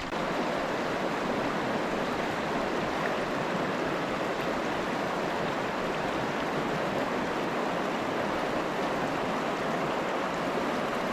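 Trout stream flowing: a steady, even rush of water with no breaks.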